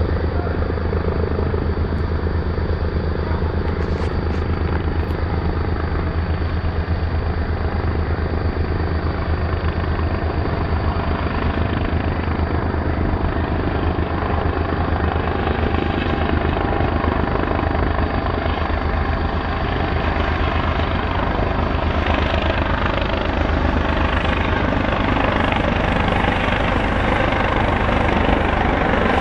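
Helicopter rotor beating steadily, growing louder over the last several seconds as the helicopter approaches.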